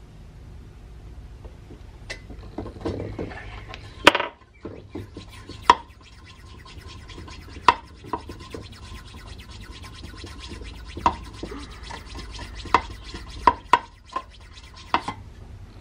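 Fast, even rasping of a metal tool worked against the antique brass blowlamp's pump barrel, with a faint steady ring from the brass. Sharp metallic clicks and knocks come about eight times.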